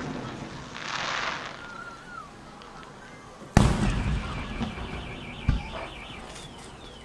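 Aerial fireworks shells bursting. The booming echo of a burst fades at the start, a loud boom comes about three and a half seconds in and rumbles away, and a shorter thump follows two seconds later.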